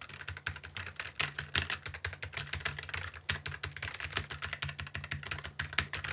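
Fast typing on a Keychron K3 Pro low-profile mechanical keyboard with tactile brown switches: a rapid, continuous run of key clicks.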